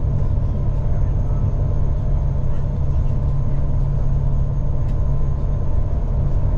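Steady low drone of a Brødrene Aa 40 m high-speed ferry's engines under way at about 30 knots, heard inside the passenger cabin, with a few faint steady tones above the drone.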